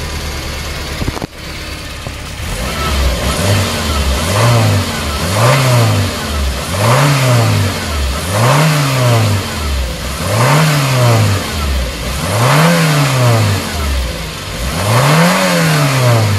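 Toyota Estima Lucida engine idling, then revved seven times in a row, each rev climbing to around 4,000 rpm and dropping back to idle, roughly every two seconds. It is a test rev after a faulty knock sensor was replaced.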